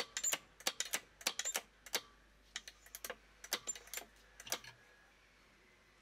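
Espresso grinder's doser lever being flicked repeatedly, a run of sharp mechanical clicks at about three a second, dispensing ground coffee into the portafilter. The clicking stops a little before the end.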